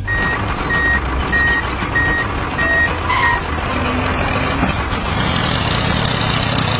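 Vehicle reversing alarm beeping six times, about one beep every 0.6 s, over a steady noisy machine sound that carries on after the beeps stop.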